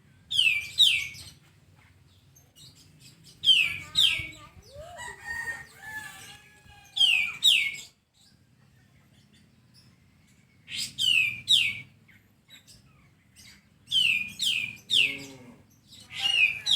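A white-shouldered triller (kapas tembak) calling in loud groups of two or three quick, high whistled notes that drop sharply in pitch, repeated every few seconds. Lower chattering call notes come in between a few of the groups.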